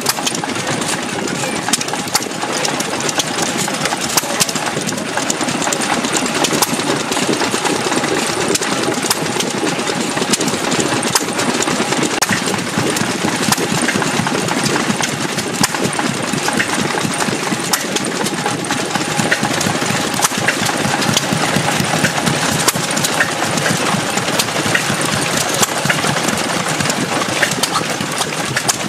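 1927 Associated Chore Boy 1 3/4 hp single-cylinder stationary engine running steadily, driving a reciprocating water pump through its pushrod, with a continuous rapid mechanical clatter and knocking.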